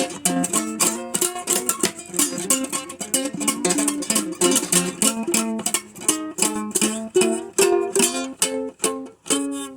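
Ukulele played solo in an old-time blues style, with a quick, steady run of picked notes and chords several per second.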